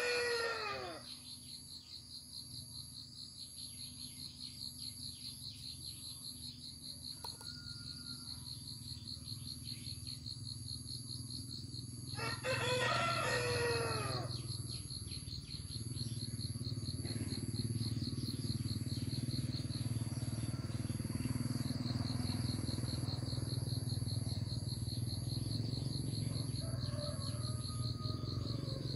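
A rooster crows twice, the first crow ending about a second in and the second about halfway through, over steady, rapidly pulsing insect trilling and a low hum.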